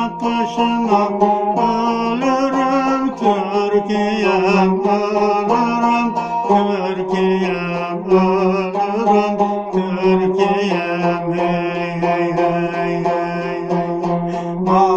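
Cümbüş played with a plectrum: a steady run of quick plucked notes carrying a Turkish folk-song melody.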